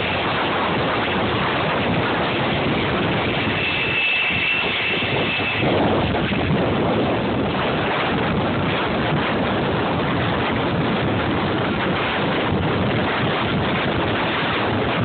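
Boeing 747 freighter's jet engines running, a steady dense noise mixed with wind on the microphone. A thin high whine sounds for a couple of seconds about three and a half seconds in.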